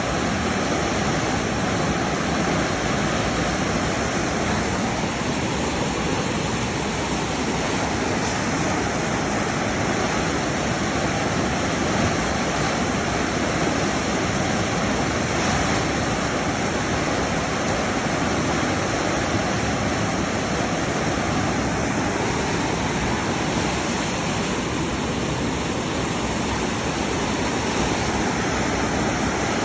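Waterfall rushing steadily: a loud, even roar of falling water that does not change.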